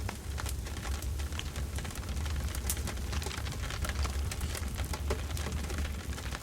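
Campfire burning, with many sharp, irregular crackles and pops of burning wood over a steady low rumble.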